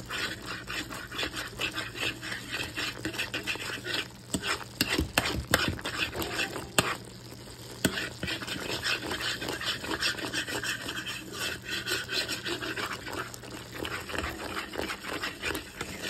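A utensil stirring thick, simmering milk gravy in a pot, scraping and clicking against the pan in quick, uneven strokes.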